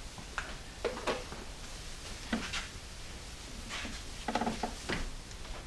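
Scattered light clicks and knocks of timing-chain parts being handled by hand at the front of an engine, with a brief clatter about four seconds in.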